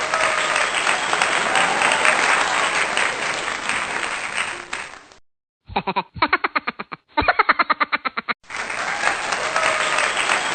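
Crowd applause with scattered voices, broken about five seconds in by a short, quick run of repeated pitched pulses, about six a second, before the applause resumes.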